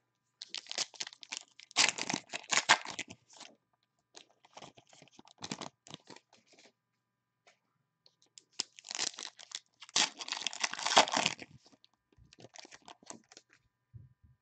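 Foil trading-card pack wrappers being torn open and crinkled by hand, in two main bursts of tearing about a second in and again around nine seconds, with lighter rustling between.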